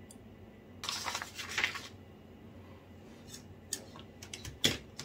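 Handling sounds of an iPhone 14 Pro and its cardboard box on a wooden table: a scraping rustle about a second in, then a few light clicks and a soft knock near the end.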